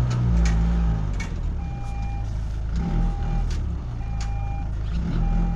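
Pickup truck reversing slowly: its reverse alarm repeats a single-tone beep about once a second over the low running of the engine.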